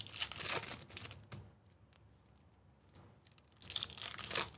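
Foil wrapper of a baseball card pack crinkling and tearing as it is peeled open by hand, in two spells of rustling: one at the start and another near the end.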